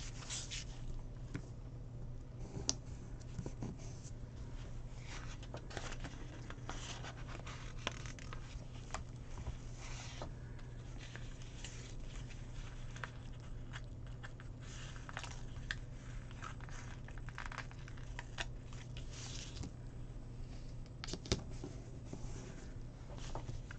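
Paper stickers being peeled from sticker sheets and pressed onto planner pages: scattered faint rustles, crinkles and light taps of paper handling, over a steady low hum.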